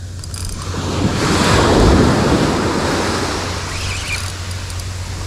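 Surf breaking on a pebble beach: a wave builds to its loudest about two seconds in and then washes back out, with wind rumbling on the microphone.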